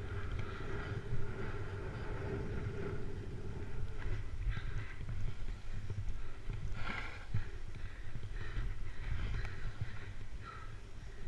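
Snowboard sliding and carving down a snow slope, its edge scraping the snow in rasps that come and go with the turns, under a steady low rumble of wind buffeting the GoPro's microphone.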